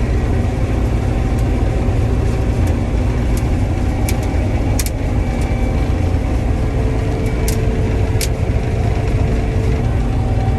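Combine harvester running steadily in a soybean field: a deep, even rumble with a few light clicks scattered through it.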